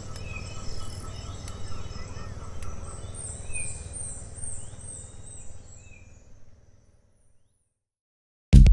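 Jungle ambience: insects chirping in repeated high trills and birds calling over a low rumble, fading out over the first seven seconds. After a short silence, loud electronic music with a heavy beat starts right at the end.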